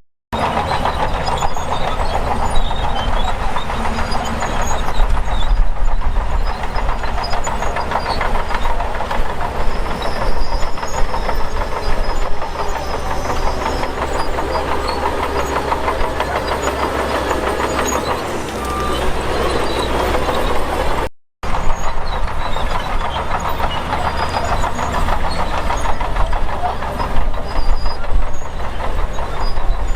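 Heavy earthmoving machinery working: a diesel engine running hard with continuous clanking and rattling. The sound drops out for a split second twice, just after the start and about two-thirds of the way through.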